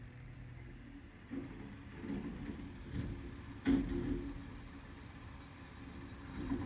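Automated side-loader garbage truck, its engine and hydraulics running as the truck pulls up and the arm grabs and lifts a trash cart. There is a brief high squeal about a second in and a loud sharp knock a little before four seconds in.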